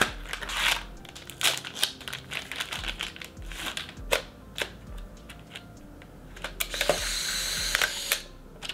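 A Polaroid SX-70 film pack being opened and loaded into a Mint SLR 670S instant camera: the box and wrapper rustle, then a run of plastic clicks and snaps as the film door is handled. About seven seconds in, the camera's motor whirs for about a second, ejecting the film pack's dark slide once the door is shut, and ends with a click.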